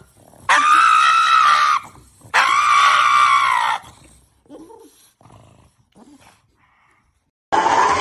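Pug screaming during a nail trim: two long, high, wailing cries of over a second each, then a few faint sounds. Near the end a different loud sound starts abruptly.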